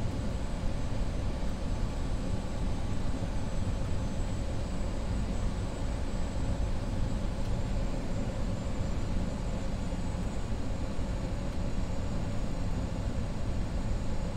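Steady rumble of an Avro RJ100 airliner on final approach with gear and flaps down: engine and airflow noise, with a faint high whine over it.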